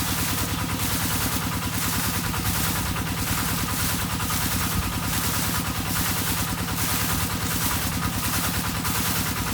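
An engine-driven water pump running steadily with a low hum, and above it a chorus of frogs calling in even pulses about twice a second.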